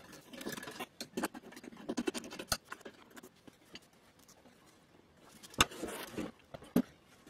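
Metal chassis of a Marshall 2550 valve amp head being worked loose and lifted out of its wooden cabinet: scratching and clicking, a sharp knock about two and a half seconds in, then scraping with a loud knock about five and a half seconds in and another near the end.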